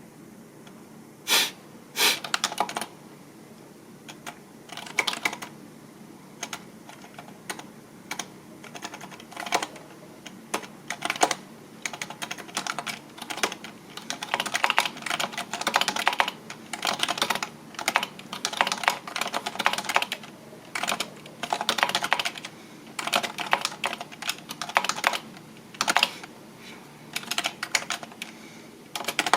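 Typing on a computer keyboard: irregular runs of key clicks with short pauses, a couple of louder single key strikes about a second and a half in.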